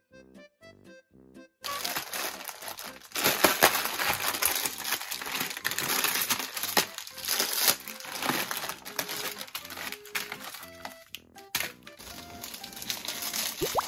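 Plastic instant-ramen packets crinkling and tearing as they are ripped open and emptied, a dense irregular crackle that starts about a second and a half in. Light background music plays throughout and is heard alone at first.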